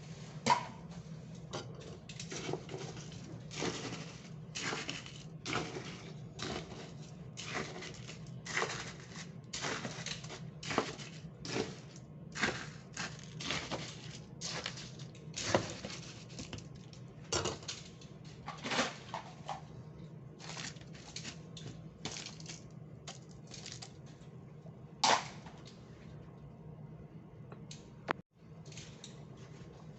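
Irregular clinks and knocks of utensils against cups and dishes during drink preparation, about one or two a second, with a louder clack near the end, over a steady low hum.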